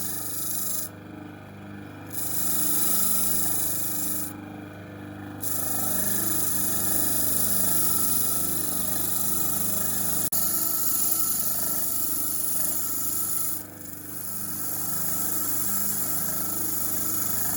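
A power tool abrading engine parts: a steady hiss over a low motor hum. The hiss cuts out three times, twice for about a second and once briefly, as the tool comes off the work.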